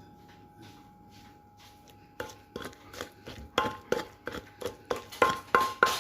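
Pestle pounding food in a mortar while mixing pounded shrimp salad: light knocks at first, then from about two seconds in a steady run of loud strikes, about three a second, each with a short ring.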